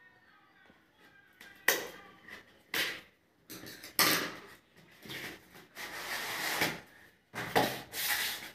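Cardboard packaging of a pen tablet being handled on a wooden table. There are a few sharp knocks and taps, a clack about four seconds in as a pair of scissors is set down, and then a long scraping rustle as the cardboard inner box slides out of its printed sleeve. Two more knocks follow near the end.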